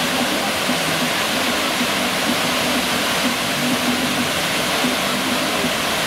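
Waterfall pouring: a steady, loud rush of falling water.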